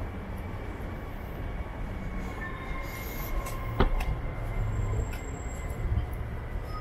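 City street traffic: a steady low rumble with a faint, thin, steady whine over it, and one sharp click about four seconds in.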